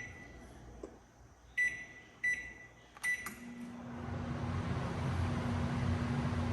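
Magic Chef MCO165UW microwave oven, empty, beeping three times as its keypad is pressed. About three seconds in there are a couple of clicks, and the oven starts running with a steady hum.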